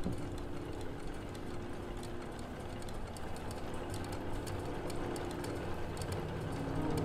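Experimental music for pipe organ and electronics: held low organ notes fading over the first few seconds, under a steady rumbling, crackling electronic texture with scattered clicks that sounds machine-like.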